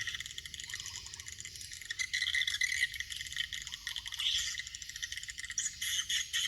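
Swiftlets twittering in high-pitched chirps, mixed with rapid rattling clicks.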